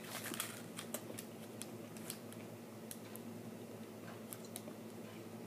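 A person chewing a mouthful of hamburger, with soft irregular mouth clicks and smacks over a faint steady hum.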